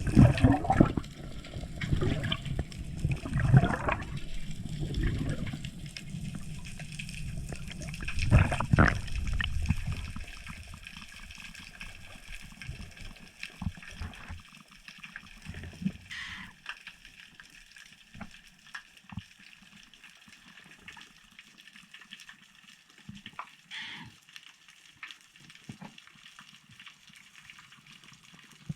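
Seawater sloshing and gurgling around the diver's camera for about the first ten seconds, then settling to a quieter underwater hush with scattered small clicks.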